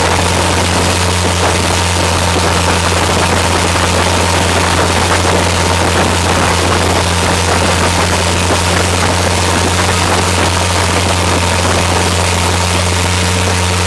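Motorboat engine running steadily at speed, a constant low drone, with water rushing past the hull and wind over the open sides.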